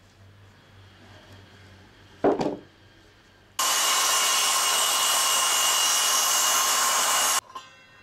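A wooden board knocks down onto the ground about two seconds in. Then a handheld circular saw cuts through wood for about four seconds, a steady noise with a faint whine, stopping abruptly near the end.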